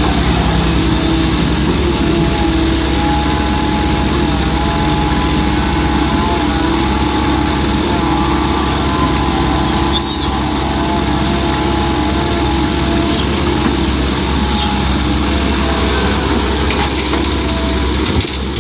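Komatsu PC130-8 excavator's diesel engine running steadily under working load while it digs and loads soil, with a brief knock about ten seconds in.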